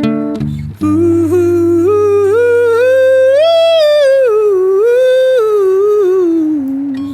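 A man humming a slow wordless melody that climbs to a high note midway and falls again, over an acoustic guitar chord strummed about a second in and left ringing.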